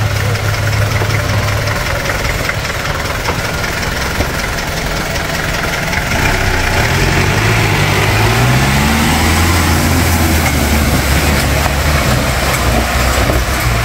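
Off-road jeep's engine running low and steady, then revving up and down from about six seconds in as the jeep churns through mud close by and pulls away.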